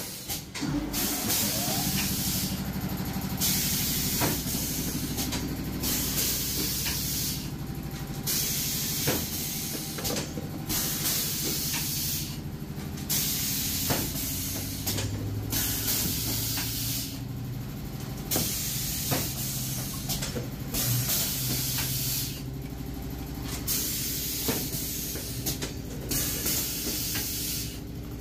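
PET bottle blow-moulding machinery: compressed air hissing loudly in long blasts, broken by short pauses about every two seconds, over a steady low machine hum, with occasional sharp clicks.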